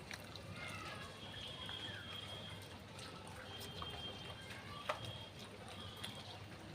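Small birds chirping in short high calls, with a sharp click about five seconds in over a steady low background hum.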